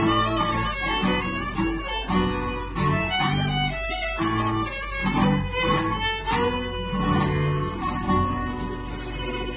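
Fiddle and acoustic guitar playing an instrumental passage of a folk tune together, the guitar strummed in a steady rhythm under the fiddle melody; the music thins out near the end.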